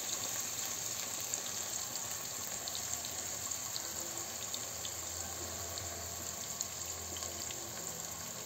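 Onions, green peppers and tomato paste sizzling quietly in a frying pan under freshly added canned tomatoes, with a wooden spoon stirring through the sauce.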